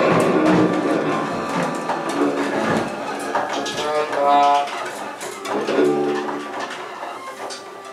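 Live band music with a trombone playing held notes, two clear ones about four and six seconds in, while the ensemble grows quieter.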